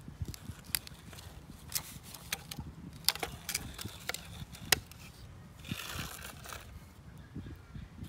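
Plastic toy dump truck handled on sandy concrete: scattered sharp clicks and gritty scrapes of its plastic body and wheels on the grit, with a longer rustling scrape about six seconds in, over a low steady rumble.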